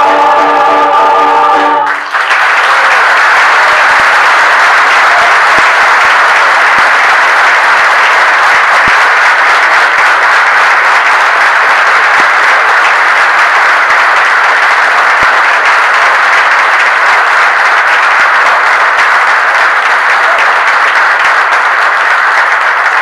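A mixed choir holds its final chord, which breaks off about two seconds in, followed by long, steady applause from the audience.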